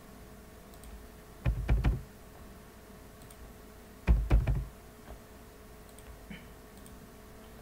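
Computer keyboard typing in two short bursts of a few keystrokes each, about a second and a half in and again about four seconds in, as the value 300 is entered into two size fields.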